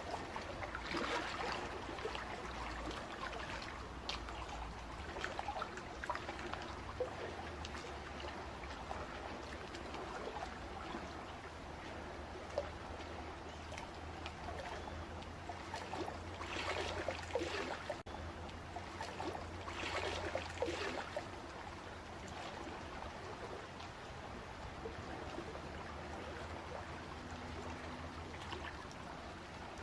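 Water running and trickling steadily, with splashier swells about a second in and twice more past the middle, over a steady low rumble.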